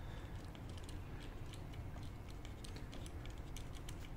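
Light, irregular clicking of a screwdriver turning a screw into the plastic rear mudguard's mounting bracket.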